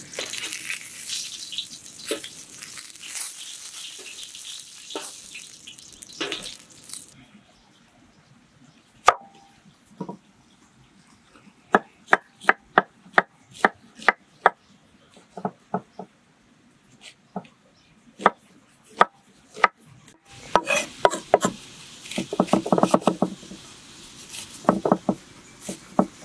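Pumpkin slices sizzling as they fry in oil in a metal pan over a wood fire. After about seven seconds the sizzle gives way to a cleaver chopping an onion on a wooden board: scattered single chops at first, then a steadier run, and a fast burst of chopping near the end.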